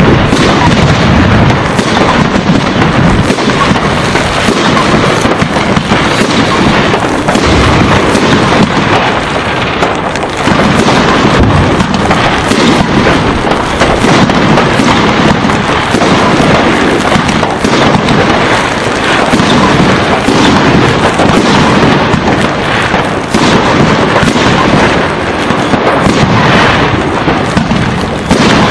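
Aerial fireworks display: a continuous barrage of shells bursting, with many overlapping bangs and crackling.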